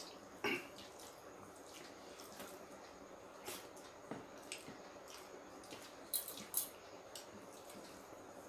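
Faint wet eating sounds of rice and curry being eaten: scattered soft squishes and mouth clicks, with two sharper clicks about six seconds in.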